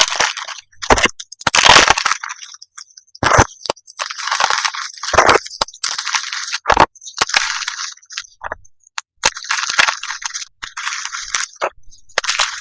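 Reformed gym chalk shaped like M&M's being crushed and crumbled, a rapid, irregular series of dry crunches and crackles with short pauses between them.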